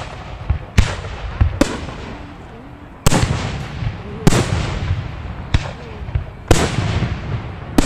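Aerial fireworks shells bursting close overhead: about seven sharp bangs, one every second or so, with smaller pops between them, each trailing off in a rolling echo.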